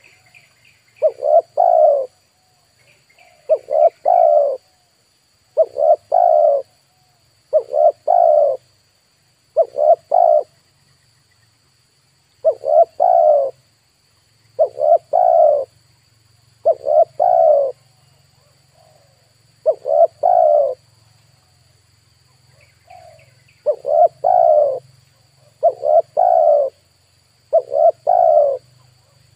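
Spotted dove (tekukur) cooing over and over, a short phrase of two or three notes about every two seconds. Faint chirps of a smaller bird come in a few times, over a faint steady high tone.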